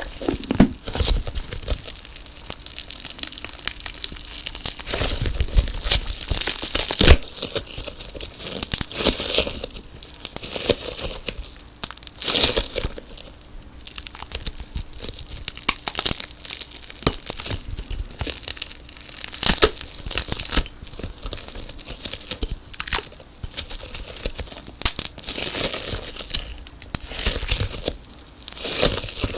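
Sticky tape on a tape ball crinkling and tearing as the ball is squeezed and pulled apart, in close, irregular crackles with a sharp snap about seven seconds in.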